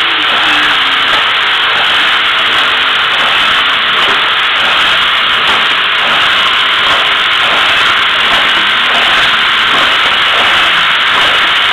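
Sticker labeling machine running: a loud, steady hiss with a faint steady hum underneath.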